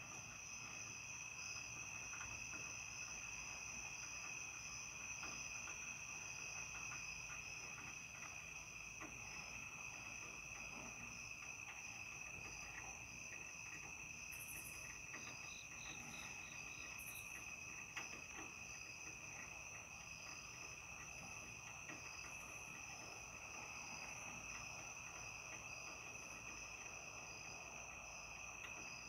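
Chorus of night insects: several steady high-pitched trills at different pitches, one with a fast pulsing beat, and a short run of quick chirps joining in about halfway through.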